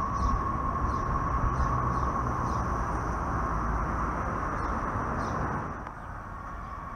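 Muni Breda light rail vehicle running on street track and pulling away, a steady high whine over a low rumble. The sound drops off about five and a half seconds in.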